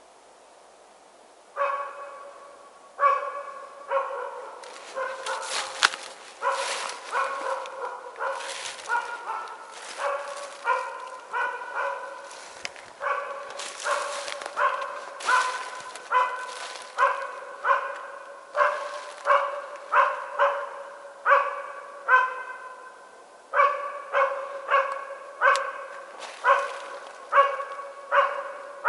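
West Siberian Laika barking steadily at game, a little more than one bark a second, starting about a second and a half in with a brief pause about two-thirds through: the bay of a hunting laika that has found a cow moose and is holding it.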